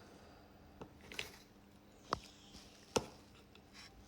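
Tweezers handling small toy parts: a few faint, sharp clicks and taps, spread out with quiet between them.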